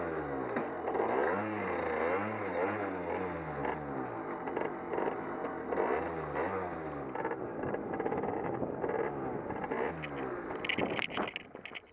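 Derbi Senda Xtreme 50 moped's small two-stroke single revving up and easing off again and again at low speed, its pitch rising and falling. Near the end a few sharp scraping clicks, and the engine sound drops away.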